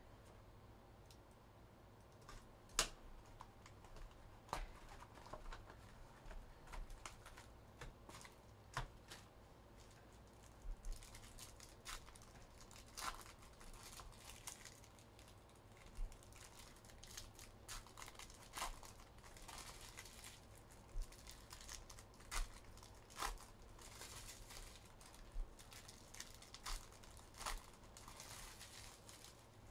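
Faint crinkling and tearing of plastic wrapping as a trading-card box and its packs are opened, with scattered light clicks and taps throughout.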